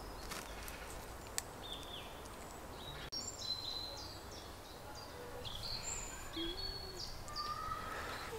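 Birds chirping and singing: short high chirps and whistles, some sliding down in pitch, coming in about three seconds in over a faint steady outdoor hiss.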